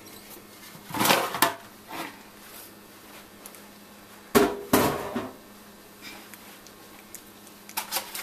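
Metal roasting pan and utensils clattering as the pan is handled: a couple of knocks about a second in, another pair about halfway through, then aluminium foil crinkling near the end.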